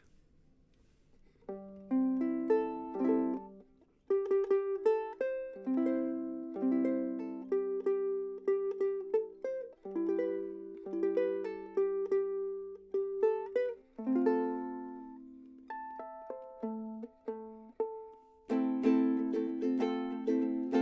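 Antar soprano pineapple ukulele with a koa body, strung in low G, played solo: picked melody notes over chords starting about a second and a half in, with fuller chords near the end.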